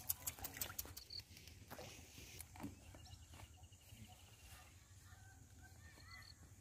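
Faint open-air ambience with distant birds chirping and a brief rattling trill a few seconds in, over a low steady rumble; a few sharp clicks in the first second.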